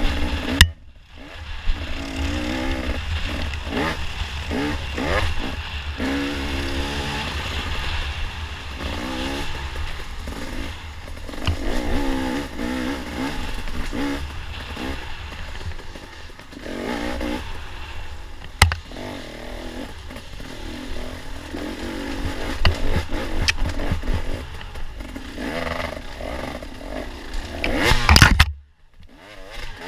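Dirt bike engine heard close up from the rider's helmet camera, revving up and down over and over as the bike is ridden through a tight, rough trail section. Clatter and a few sharp knocks come from the bike working over the rough ground.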